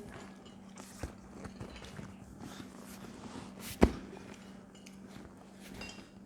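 Quiet mealtime sounds: small clicks and taps, with one sharp knock a little past the middle, over a steady low hum.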